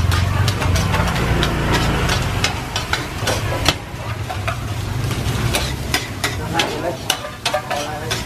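Rice being stir-fried in a large flat pan: a metal ladle and spatula scrape and clack against the pan in quick, irregular strokes over the sizzle of the rice. A low rumble underneath fades about two and a half seconds in.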